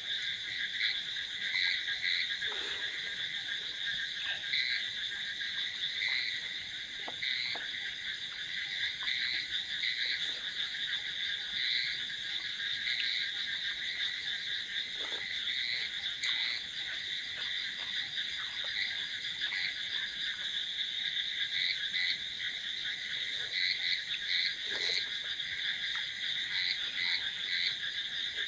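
A dense night chorus of frogs calling: a steady, unbroken drone, with louder individual calls standing out about once a second.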